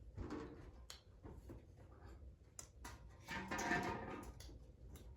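Low room sound with a few light clicks, and a faint voice murmuring briefly about three seconds in.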